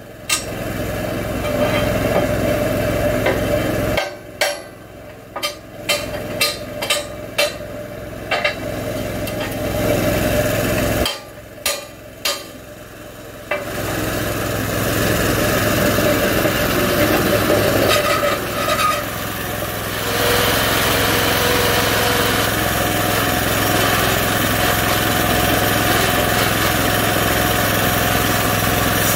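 Small gas engine of a homemade bandsaw mill running, with a series of sharp knocks and clanks in the first half as the log is set on the carriage. From about halfway a fuller, steady noise takes over as the blade runs and cuts along the log, growing louder about 20 seconds in.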